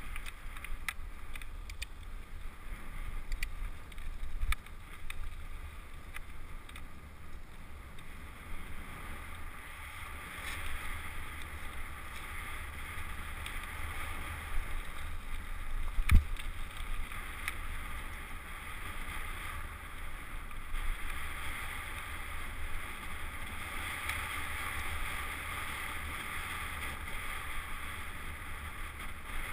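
Wind rushing over a helmet-mounted action camera's microphone with a low rumble as the bicycle rolls over pavement and a dirt trail. About halfway through there is a single sharp knock, the loudest sound here.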